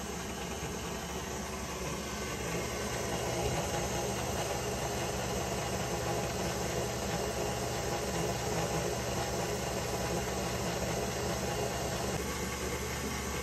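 KitchenAid stand mixer motor running with a steady hum on a low speed (setting 2). Its dough hook is turning through dry flour in the steel bowl.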